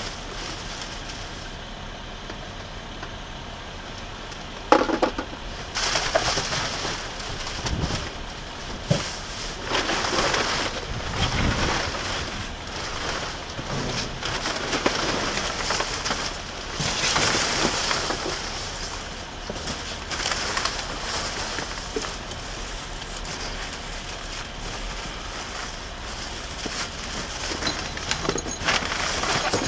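Plastic wrap and cardboard rustling and crinkling in irregular bursts as they are pushed aside and rummaged through by hand, with a sharp knock about five seconds in.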